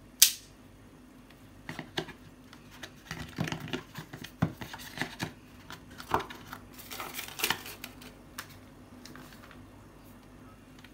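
Hands handling the iPad box's white cardboard insert, setting the power adapter and charging cable back into it: a sharp click just after the start, then a run of irregular light knocks, taps and rustles.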